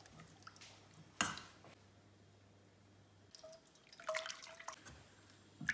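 A spatula stirring water in a stainless steel saucepan: soft sloshing and dripping, with a sharp knock against the pan about a second in. Later a short, steady tone sounds twice among small clicks.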